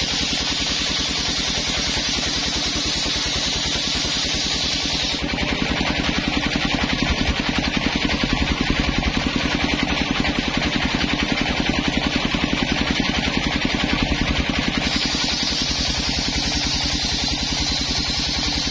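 Engine-driven homemade circular saw bench running with a fast, even engine beat. From about five seconds in to about fifteen, the blade rips lengthwise through a coconut-wood plank and the engine's beat grows louder under the load, then the blade spins free again with a high hiss.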